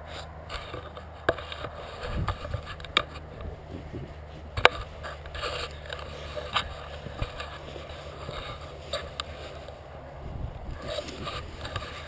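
Handling noise as the camera is moved about and rubs against a fabric jacket: rustling and scraping with scattered sharp clicks and knocks.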